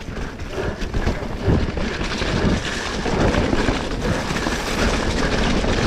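Mountain bike descending a dirt trail at speed: continuous rumble of knobbly tyres on packed dirt with the rattle and clatter of the bike over bumps, and a heavier jolt about one and a half seconds in.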